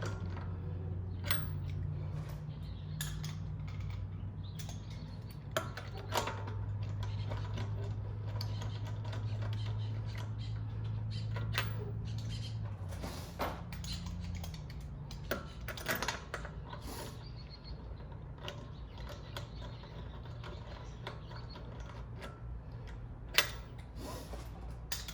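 Lug bolts being started into a car's wheel hub: scattered metallic clicks and clinks of the bolts and tools. A low steady hum runs underneath and stops about halfway through.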